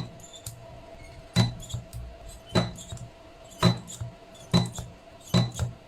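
Battery spot welder firing onto 21700 cells, joining nickel strip and copper sheet to the cell ends: six sharp snaps about a second apart, each with a short low buzz, over a faint steady hum.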